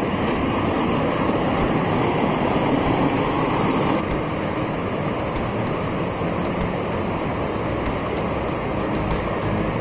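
Waterfall after heavy rain: a steady, dense rush of falling water, shifting slightly in tone about four seconds in.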